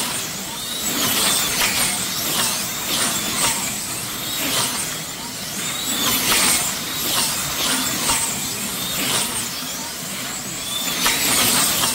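Slot cars racing on a large multi-lane banked track: electric motors whining in quick rising and falling sweeps as cars come past, one after another, over a steady rushing noise.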